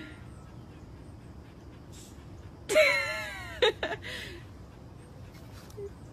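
Siberian husky letting out a short whining vocalization about three seconds in, sliding down in pitch, followed by a couple of quick sharp yips.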